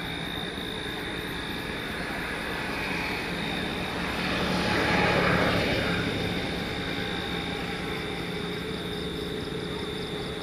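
A passing vehicle's noise swells to a peak about five seconds in and fades again, over steady outdoor background noise with a faint high steady tone.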